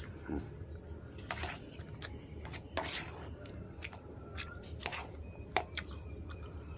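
Metal spoon clinking and scraping against a bowl of rice and goat curry, with chewing in between: a handful of short sharp clicks over a steady low hum.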